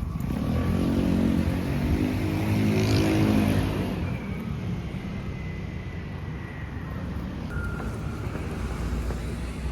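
A road vehicle passes close by, its engine loudest in the first few seconds, then fading into steady traffic noise.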